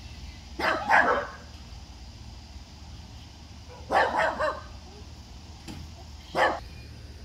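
A dog barking in short bursts: a double bark about half a second in, three quick barks around four seconds in, and a single bark near the end.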